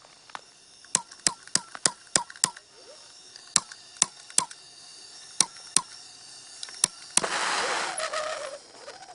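Blowtorch's push-button igniter clicking over and over, about a dozen sharp clicks, as it is struck to light. About seven seconds in comes a sudden loud hissing rush that fades over a second or so.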